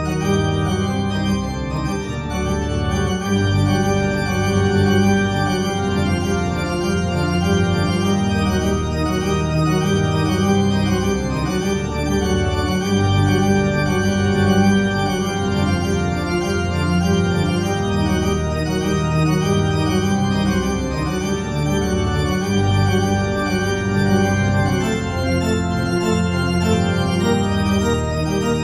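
Organ music accompanying a silent film: slow, sustained chords held for several seconds at a time before shifting.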